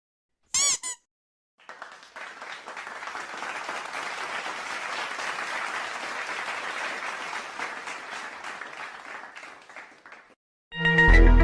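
Crowd applause, a dense patter of clapping that swells in over about a second, holds for roughly eight seconds and fades out. A short pitched sound effect comes just before it, and a loud sustained tone starts near the end.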